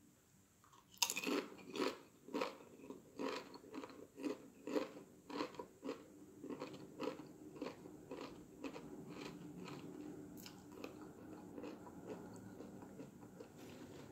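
Close-up bite into Doritos Flaming Hot Nacho tortilla chips about a second in, followed by crunchy chewing at about two chews a second. The chewing grows softer and more muffled in the second half as the chips break down.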